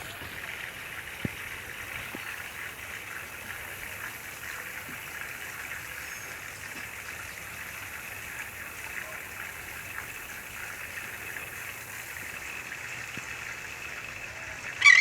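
A steady hiss of outdoor ambience with a few faint ticks. A short, louder sound cuts in just before the end.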